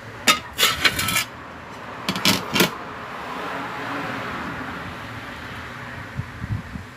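Several sharp metallic clinks and clatters in the first three seconds, metal parts and tools being handled on a workbench, followed by a steady hiss that swells and then fades.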